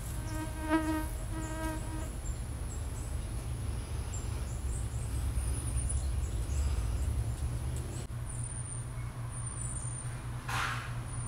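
A fly buzzing close by for about two seconds, with one short break, over a steady high whine and a constant low rumble; a brief rustle comes about ten seconds in.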